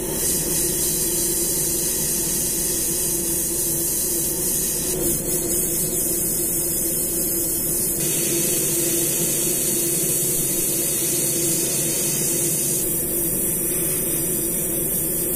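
Gravity-feed airbrush spraying paint: a steady hiss of air and atomised paint, with a steady hum underneath. The hiss changes abruptly a few times.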